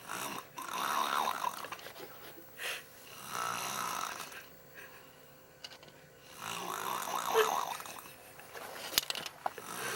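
A young girl snoring loudly in her sleep: several long, raspy snores a few seconds apart. There is a sharp click near the end.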